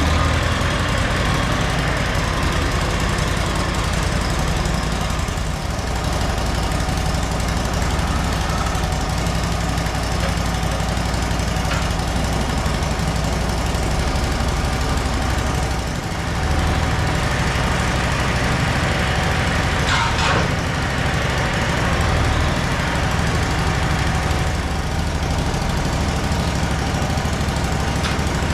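Wood-Mizer LT35 portable band sawmill running steadily, with a brief sharp sound about twenty seconds in.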